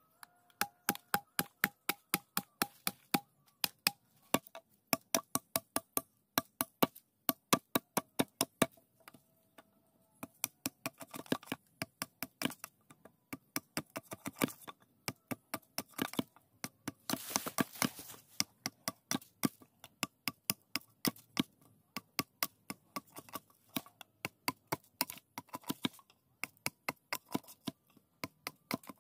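Machete blade chopping into a bamboo pole in quick, regular strokes, about three sharp cracks a second, with a short noisier stretch about seventeen seconds in.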